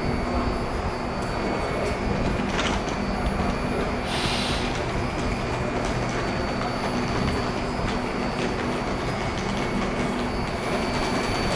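Stationary electric train at a station platform running its auxiliary equipment: a steady hum with several constant whining tones. About four seconds in there is a short hiss of air.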